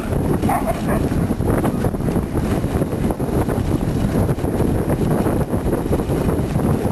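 Sled dogs giving a few short barks and yips, heard over a steady rush of wind on the microphone from the moving sled.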